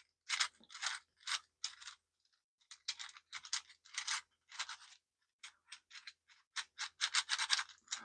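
Layers of a fully 3D-printed PLA Rubik's cube being twisted by hand: a quick run of short, scratchy plastic-on-plastic scrapes and clicks, several a second, with a couple of brief pauses. The cube is dry and unlubricated, its printed surfaces still rough and not yet worn in.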